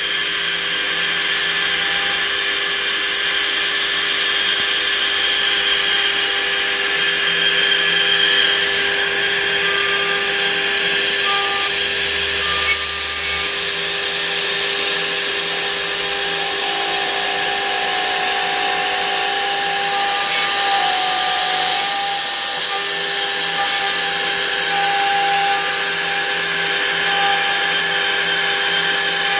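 Water-cooled brushless CNC router spindle running while its bit carves a wood slab: a steady whine over the noise of the cutting, with a few brief changes in tone.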